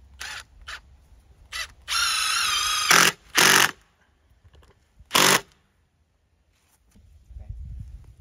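Milwaukee cordless impact driver driving a screw into a 2x4 wood block. It runs with a whine for about a second, then gives two short loud bursts, and one more burst about two seconds later, with a few light clicks before the first run.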